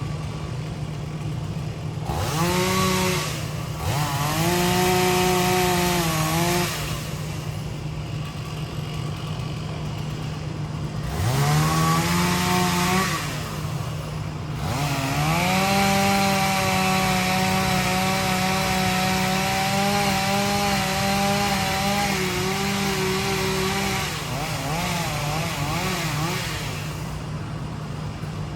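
Two-stroke chainsaw revved up four times, sweeping quickly up to full throttle and holding, the last time for about nine seconds as it cuts, then wavering back down to idle. An excavator's diesel engine runs steadily underneath.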